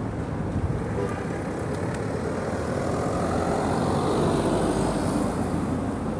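City street traffic, with a vehicle passing close by: its noise swells to its loudest about four to five seconds in, then begins to fade.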